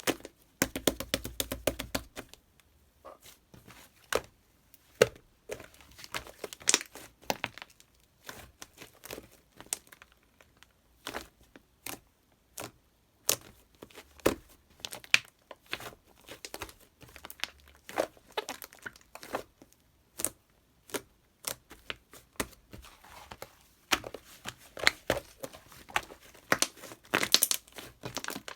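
Irregular crinkling and rustling with short tearing sounds and frequent small clicks as thin material is handled, busier near the start and again near the end.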